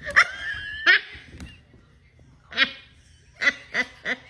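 A child's high-pitched wail, held for most of the first second and then cut off, followed by a few short bursts of laughter.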